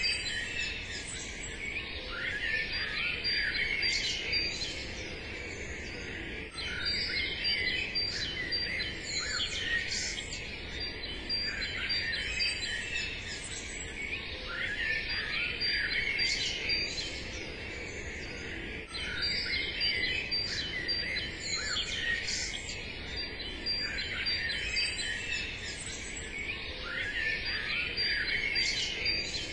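Birds chirping and singing, many at once in a busy chorus of short high calls, the chorus swelling and easing every few seconds.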